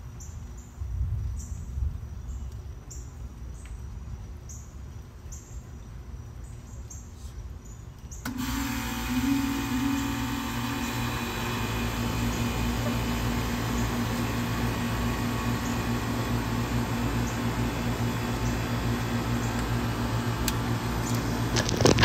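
Outdoor unit of a 2002 Payne 'Teardrop' heat pump starting up in cooling mode: over faint background chirping, the Bristol reciprocating compressor and the GE condenser fan motor come on suddenly about eight seconds in and keep running with a steady low hum and fan rush. A brief bump near the end.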